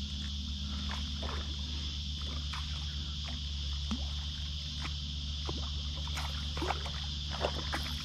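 Steady chorus of cicadas, with scattered short clicks and knocks over it while a hooked bass is played from a kayak.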